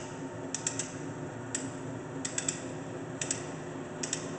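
Horizontal metal-cutting band saw running with a steady hum, with sharp metallic ticks in clusters of two or three about once a second.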